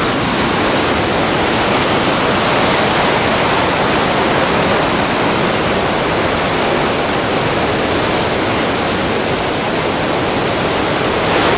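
Waterfall and river rapids rushing: a loud, steady, unbroken rush of water.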